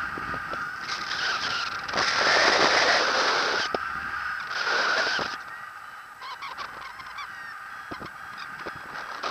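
Airflow buffeting a camera microphone in paraglider flight, surging in gusts and easing off after about five seconds, with a steady high-pitched tone running underneath.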